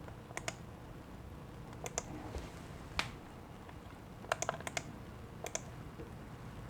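Scattered light clicks and taps of small hard objects being handled, at irregular intervals, with a quick run of several clicks a little past the middle.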